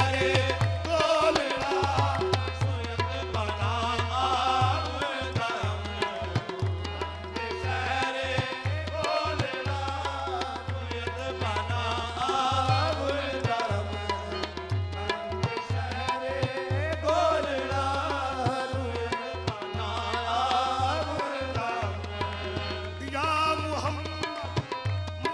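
Qawwali music: a tabla beat keeps a steady rhythm under sung vocals.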